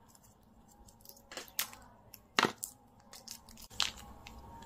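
Plastic packaging of a wireless clip-on microphone kit being handled: a run of sharp clicks and crinkles as small parts are taken from the plastic tray and a small plastic bag, the loudest about two and a half seconds in.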